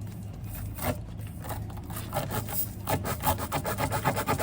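A tire plug kit's spiral reamer being pushed and pulled in a tire's puncture hole to enlarge it for the plug: rubber rasping against the steel tool in rapid strokes that grow quicker and denser about halfway through.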